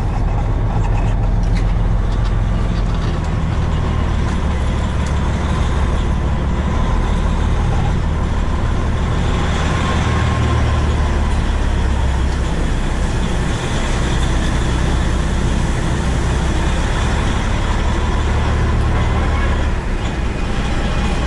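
Peterbilt semi truck's diesel engine running at low speed as the truck creeps forward, heard from inside the cab: a steady low drone, with some added hiss and rattle from about nine seconds in.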